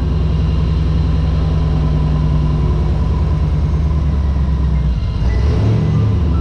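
Car engine idling steadily, with a misfire on one cylinder that the owner is trying to track down.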